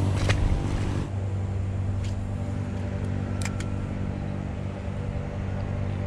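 A boat engine idling steadily with a low hum, with a few short, sharp clicks over it.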